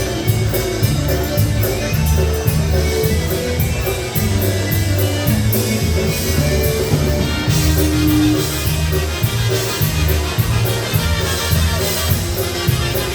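Live polka band playing a tune with a steady beat, bass notes and cymbal ticks.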